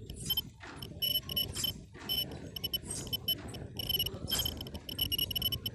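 Short, high-pitched electronic beeps repeating many times at an uneven pace, over rustling and handling noise.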